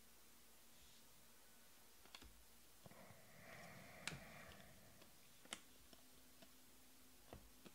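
Near silence with a few faint clicks of Panini Prizm trading cards being flicked and slid through the hands, the sharpest about four seconds in, and a soft sliding rustle of card against card just before it.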